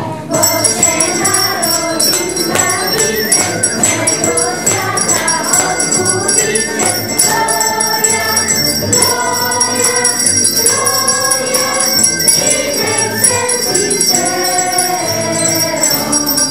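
A group of children singing a song, with bells jingling along all through it.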